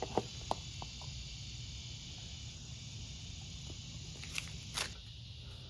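Steady high-pitched chirring of insects, with a few light clicks and taps from handling the oil bottle and funnel while topping up the mower's engine oil: several in the first second and two more about four and a half seconds in.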